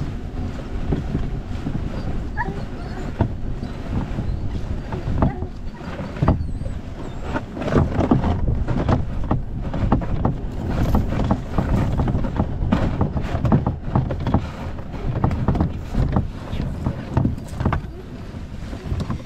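A kayak hull being dragged by its bow handle over grass and dry weeds: a continuous scraping rumble with many small crackles and knocks as stalks break and the hull bumps along.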